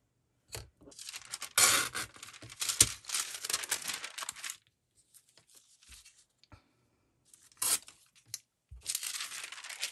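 Paper being torn by hand: a long tearing and rustling stretch lasting a few seconds starting about a second in, scattered small taps, a sharp tap, then more tearing near the end.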